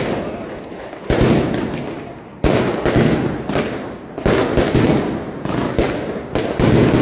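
Aerial fireworks going off: a loud bang every second or so, each followed by crackling from the bursting shells.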